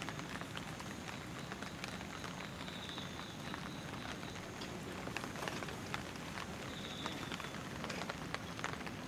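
Steady rain falling, with many small drops pattering.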